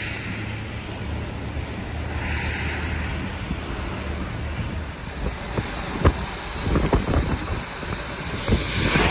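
Steady rumble of wind and road noise from a moving vehicle, with passing whooshes early and a scatter of short sharp knocks in the second half.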